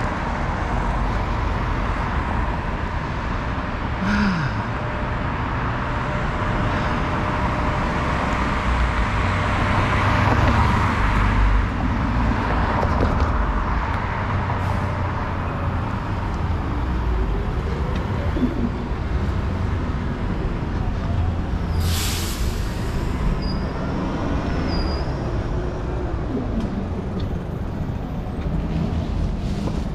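City street traffic on a helmet-mounted action camera while cycling: a steady rumble of passing cars and wind. About two-thirds of the way through there is a short, sharp hiss.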